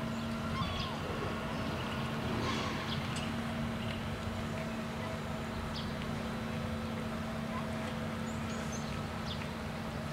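Steady outdoor background hum with a constant low tone, and a few short faint bird chirps scattered through.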